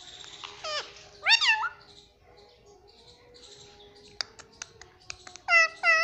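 Indian ringneck parakeet calling: a few sharp, high calls that slide steeply in pitch, loudest about a second in and again near the end, with a quick run of small clicks in between.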